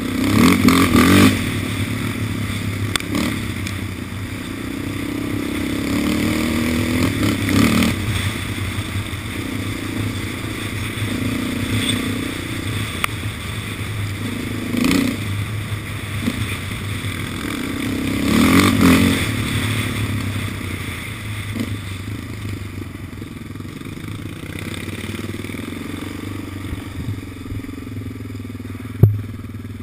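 Yamaha Raptor 700 quad's single-cylinder four-stroke engine running at trail speed, its revs rising briefly about four times as it is ridden along a rutted dirt track. A sharp knock sounds near the end.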